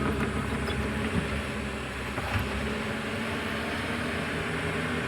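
Diesel engine of heavy earth-moving machinery running steadily, with a low-pitched hum that lessens a little around the middle.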